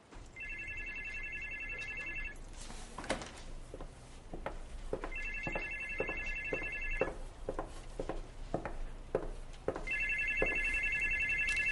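Mobile phone ringing with an electronic trilling ringtone: three rings of about two seconds each, roughly five seconds apart, with soft clicks and knocks in between.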